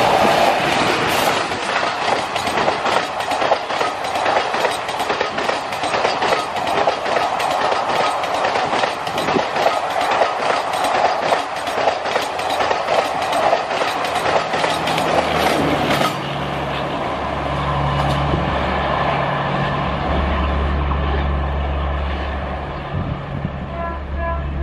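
Express passenger train passing close at speed behind a WCAM3 electric locomotive, its coach wheels clattering rapidly over the rail joints. About two-thirds of the way in, the clatter cuts off abruptly and gives way to a steadier low rumble.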